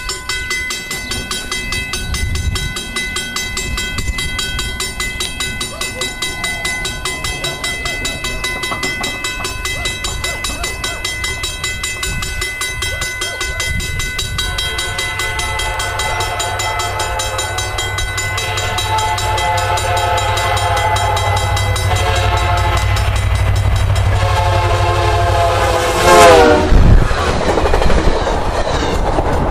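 VIA Rail passenger train led by F40PH-2 diesel locomotive 6432 approaching and passing. Its engine rumbles, and about halfway through it sounds its air horn in a long, long, short, long pattern. The last blast drops sharply in pitch as the locomotive goes by, followed by the rush and clatter of the passing coaches. Through the first half a high ringing tone pulses about twice a second.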